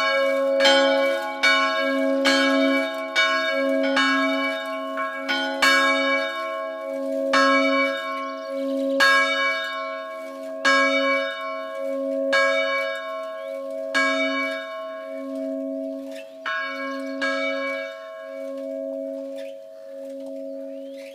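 Church bells ringing, struck over and over about once a second, each stroke leaving a long hum that hangs under the next. The strokes thin out and grow quieter toward the end.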